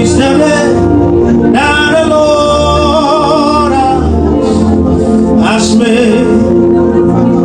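Gospel worship music: a singer's voice over sustained keyboard chords and bass.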